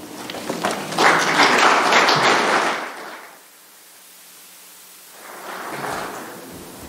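Congregation applauding after the choir's singing: about two seconds of clapping that dies away, then a second, softer spell about five seconds in.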